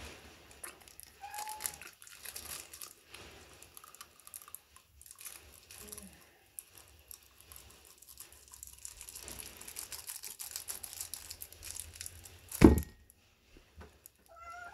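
Thin plastic wrapper of a crab stick crinkling as it is peeled back, with biting and chewing. A single sharp thump near the end is the loudest sound.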